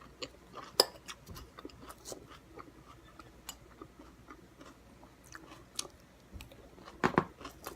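A person chewing food, with many small crunches and wet mouth clicks, and a couple of louder clicks about a second in and near the end.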